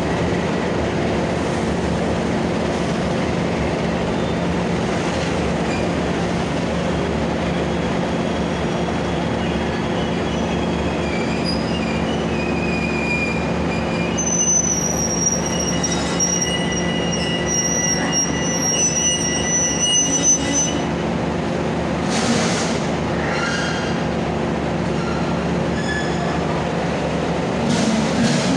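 Passenger coaches of the Ranggajati train rolling along the station platform with a steady low rumble. From about eleven seconds in, high metallic squeals from the wheels sound for about ten seconds as the train slows on arrival.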